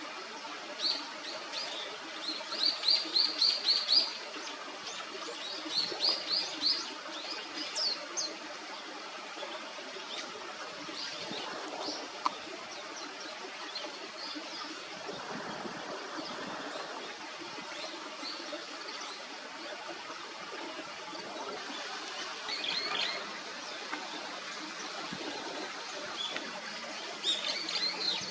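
Common kingfisher calling: quick runs of short, high-pitched piping notes, mostly in the first eight seconds and again briefly twice later, over a steady outdoor hiss.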